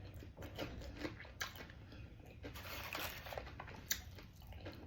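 Soft close-miked eating sounds: scattered wet mouth clicks and quiet chewing of hot brisket queso dip.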